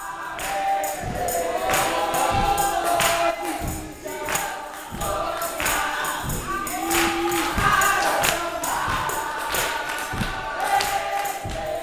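Gospel choir and congregation singing an old-fashioned hymn, with hand claps keeping a steady beat.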